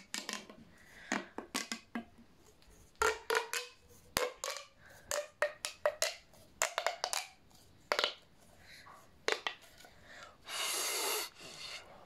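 Plastic pop tube being pulled and bent, its ridged segments snapping open and shut in quick clicks and pops. Near the end comes a breathy rush of air, about a second long, blown into the tube.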